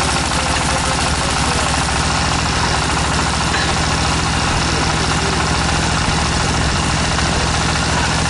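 Tractor engine of a tractor-mounted water well drilling rig running steadily under a wash of mechanical noise.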